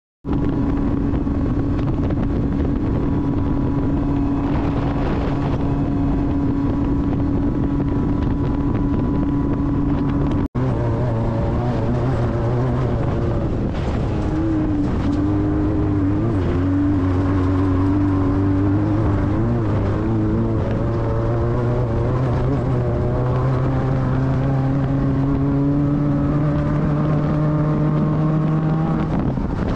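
A vehicle engine running steadily while driving, its pitch wavering gently and rising slowly near the end. The sound breaks off for an instant about ten seconds in.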